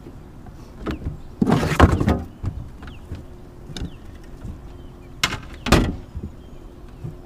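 Bangs and splashing at the side of an aluminum boat as a big catfish is hand-lined in and thrashes. A long, noisy burst comes about a second and a half in, then two sharp bangs about half a second apart a few seconds later.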